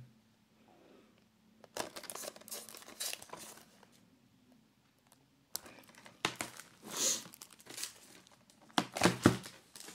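Crinkling, rustling plastic as a Blu-ray case is handled and turned over, in two stretches of scattered bursts with a quiet gap between.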